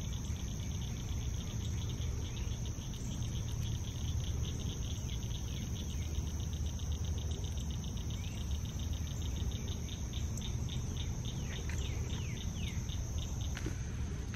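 Insects chirping in a fast, even pulse over a steady high-pitched insect drone, with a low rumble underneath. Near the end a few short falling bird calls come in.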